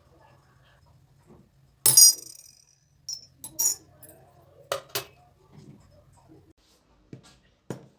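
Kitchen dishes and cutlery clinking and knocking: one loud, sharp ringing clink about two seconds in, then several lighter clinks and knocks. A faint steady low hum runs underneath and stops near the end.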